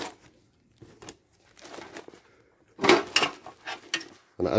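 Handling noise of a canvas carry bag being packed and picked up: scattered rustles and knocks, the loudest cluster about three seconds in.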